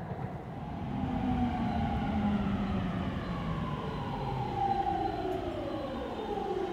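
Sotetsu 10000 series electric train pulling into the station, braking. Its traction-motor whine glides steadily down in pitch over running rumble as it slows.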